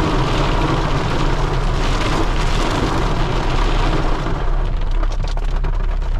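Mahindra Scorpio N 4x4 driving on a rough off-road mountain track: a loud, steady rumble with crackling noise from the tyres and road. The crackle eases a little about four seconds in.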